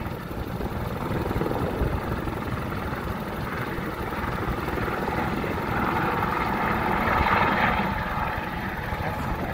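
Eurocopter EC130 single-turbine helicopter running on the pad and lifting off: steady fast rotor chop with turbine whine, growing louder and brighter in the second half as it takes off.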